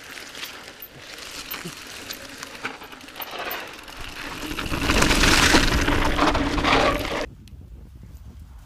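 Mountain bike rolling fast down a dirt trail covered in dry leaves: tyre noise and crunching leaves, with the bike's rattles and clicks over the bumps. The rush swells about four seconds in as the bike drops down the slope, then cuts off suddenly a little after seven seconds.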